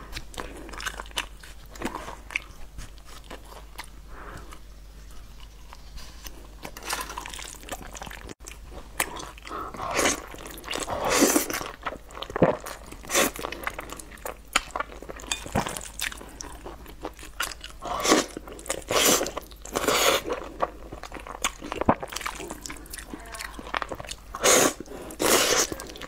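Close-miked eating sounds. Chewing and biting on meat pulled from a skewer, then from about ten seconds in, repeated loud slurps of thick noodles in a dark sauce, each about a second long.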